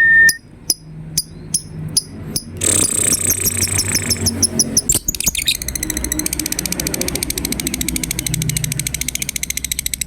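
Lovebird calling: a few spaced sharp chirps, then a burst of rapid chatter about two and a half seconds in, then from about five seconds a long, fast, rattling trill, the 'ngekek' call that lovebird song contests judge.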